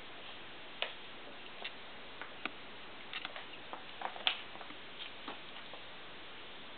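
Faint, irregular clicks and taps from a handheld camera being moved about, over a steady hiss. The strongest click comes a little after four seconds in.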